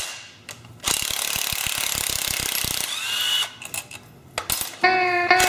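DeWalt cordless impact driver hammering out the crankcase-cover bolts of a Briggs & Stratton Intek engine: a rapid rattle for about three seconds, then a second short burst. Guitar music comes in near the end.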